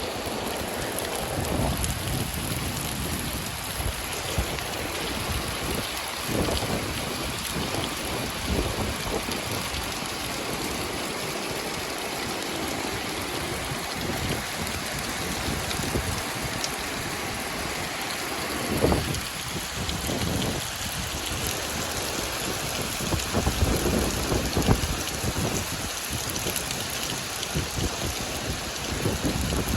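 Heavy rain falling steadily, with brief low rumbles swelling now and then, the strongest about two-thirds and three-quarters of the way through.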